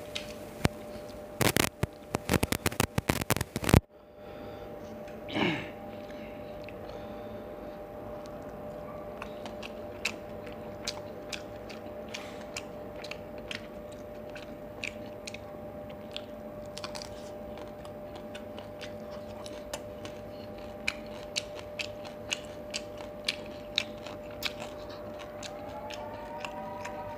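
Close-up eating sounds of crisp fried fish: loud, dense crunching for the first four seconds that stops abruptly, then softer wet chewing and mouth clicks over a faint steady hum.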